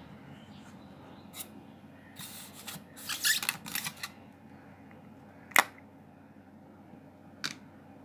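Clear plastic box of magnetic balls being handled and pulled out of its metal tin: a small click, then about two seconds of scraping and rattling, a single sharp plastic click halfway through, which is the loudest sound, and another click near the end.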